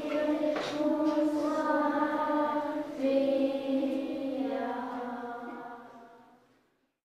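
A choir singing slow, held notes together, fading out to silence near the end.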